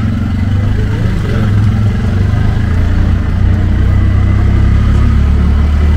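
Keke auto-rickshaw's small engine running steadily, heard from inside the open cab as it drives along; its note drops a little about halfway through as it slows.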